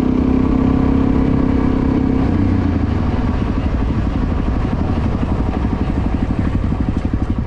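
Motorcycle engine running, held at a slightly higher pitch for about the first two seconds, then dropping into a lumpy idle pulsing about ten times a second.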